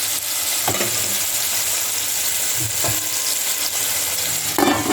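Sweet pepper, onion and tomatoes sizzling in a cooking pot, a steady hiss. A short pitched sound rises out of it near the end.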